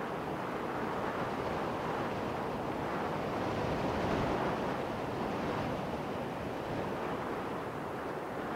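Wind roaring on the microphone, a steady rushing noise that swells a little about halfway through.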